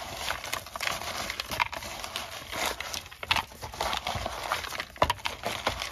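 Raw pig feet being hand-mixed with seasonings and chopped vegetables in a plastic bowl by a gloved hand: irregular wet squishing and slapping, with sharper knocks of the feet against the bowl, the sharpest near the end.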